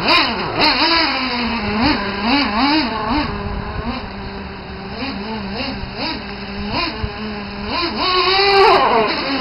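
Traxxas T-Maxx 3.3 nitro RC monster truck's small glow-fuel engine running, holding a steady idle between repeated short throttle blips that rise and fall in pitch, with a longer, louder rev near the end as the truck drives off.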